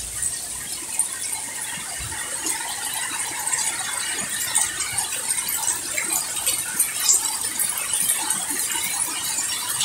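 Steady rain falling on garden plants and a wet paved path, full of small close drips and splashes, with a steady high-pitched whine behind it.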